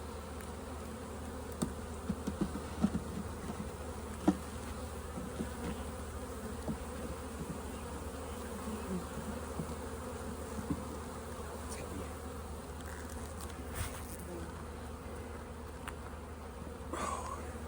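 Honeybees buzzing steadily around an open hive, with scattered light clicks and knocks from the wooden frames being handled, most of them in the first few seconds.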